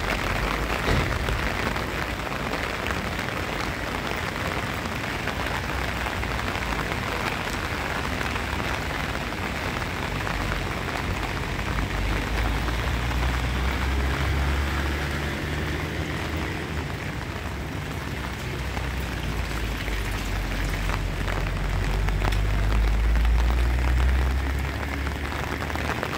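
Steady rain falling on paved streets and pavements, an even hiss. A low rumble swells under it through the second half and fades near the end.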